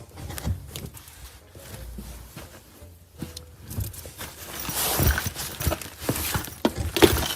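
Irregular footsteps, knocks and rustling of a person moving about and rummaging through things, growing louder and busier over the last few seconds.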